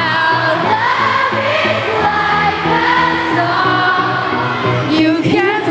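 Live arena concert heard from the audience: a woman singing a pop song over the band, with the sound of a large hall.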